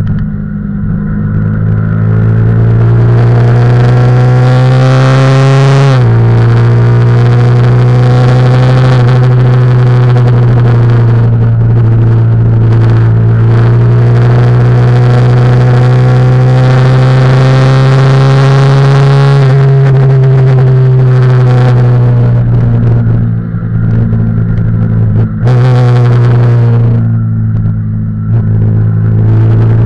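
Yamaha YZF-R15's single-cylinder four-stroke engine at high revs, heard on board at speed. The pitch climbs under acceleration and drops sharply at a gear change about six seconds in, then climbs slowly again. Past the middle it falls away as the rider slows, and drops sharply at another shift a few seconds before the end.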